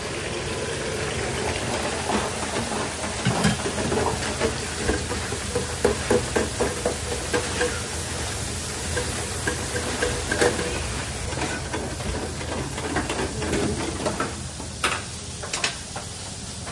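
Busy fast-food kitchen: a steady hiss with deep fryers bubbling, and many short clatters and knocks of utensils and baskets.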